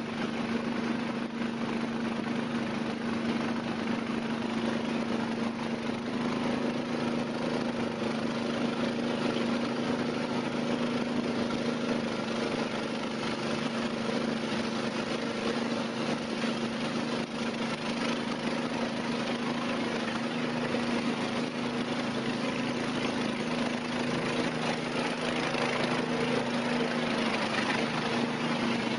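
Small motorboat engine running steadily at an even speed, a constant drone.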